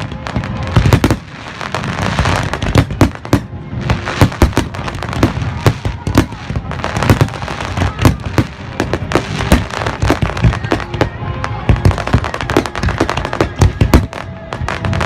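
Fireworks display going off in a dense barrage: many bangs and crackles a second, overlapping, with heavy low booms throughout.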